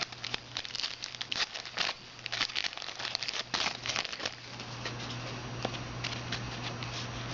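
Foil wrapper of a 2010 Rookies and Stars football card pack being torn open and crinkled, busy crackling for the first four seconds or so, then only a few scattered crinkles over a low steady hum.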